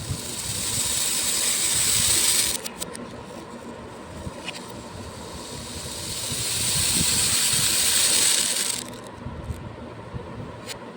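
Small beads poured in a stream, a dense rushing patter of many tiny clicks that builds and cuts off sharply, twice: once about two and a half seconds in and again near nine seconds. Scattered single bead clicks fall between the pours.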